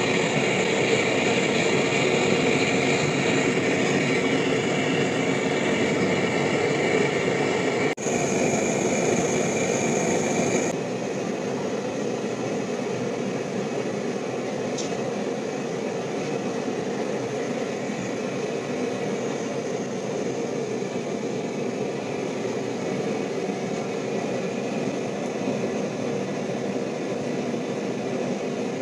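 Propane forge burner running with a steady roar of gas flame, its propane tank running low. It turns a little quieter about eleven seconds in.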